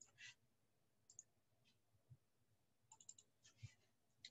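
Near silence with a few faint, scattered clicks, including a quick run of four about three seconds in.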